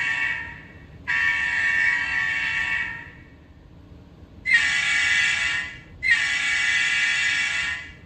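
Sampled diesel locomotive air horn played by the ESU LokSound 5 sound decoder of an Atlas GP9 model locomotive, through the model's small speaker. The tail of one blast, a held blast of about two seconds, then two more blasts of a different, sharper-starting horn. These are horn choices being auditioned by stepping through decoder CV 163.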